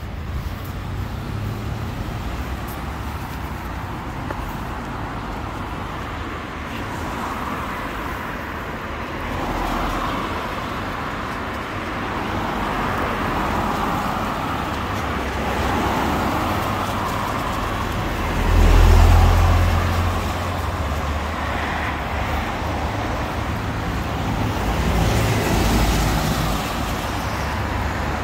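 Road traffic on a wet road: cars and vans passing in a steady stream, with a loud low rumble about two-thirds of the way through.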